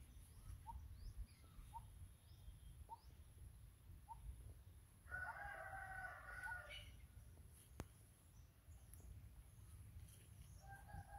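A rooster crowing faintly: one drawn-out crow of about a second and a half about five seconds in, with another starting near the end. Before it, faint short bird chirps repeat about once every second.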